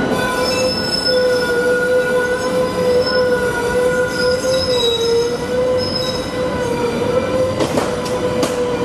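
Steel wheels of a Pittsburgh light rail car squealing on the track as it passes. The squeal is loud and steady, with shrill higher tones that waver and come and go. There are a couple of sharp knocks near the end.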